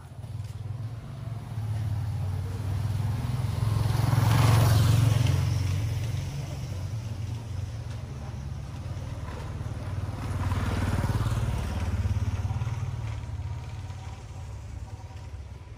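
Motor vehicles passing on a road: a steady low engine rumble, with two vehicles swelling up and fading away, one about four seconds in and another about eleven seconds in.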